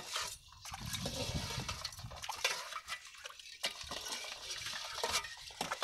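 Perforated metal ladle clinking and scraping against a metal basin as crabs and snails are stirred and sorted in it, with some water sloshing. The clinks come irregularly, a few sharp ones standing out.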